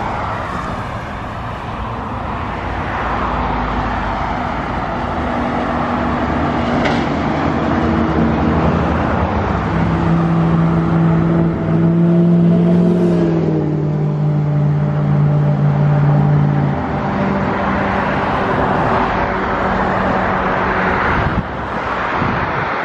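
Road traffic going by. One vehicle's engine hum stands out from about eight to seventeen seconds in, its pitch dropping about thirteen seconds in as it passes.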